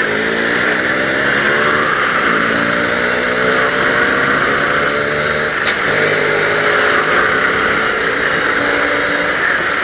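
Motorcycle engine running on the move, its pitch climbing several times and dropping back as it accelerates, over a steady rush of wind and road noise.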